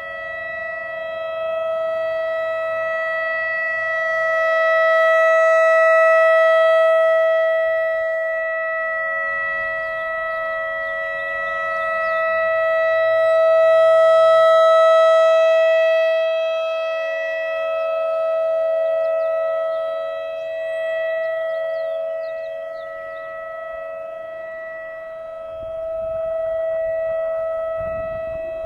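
Whelen WS-3000 electronic outdoor warning siren sounding a steady, unwavering tone. It grows louder and fainter in slow swells as its rotating head sweeps toward and away from the listener.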